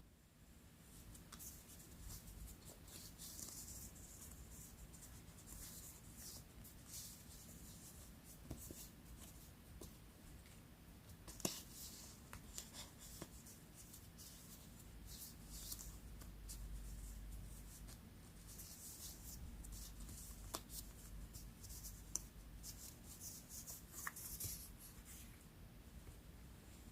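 Quiet paper-craft handling: paper being rubbed, slid and scratched in short strokes, with a few sharp light ticks in between.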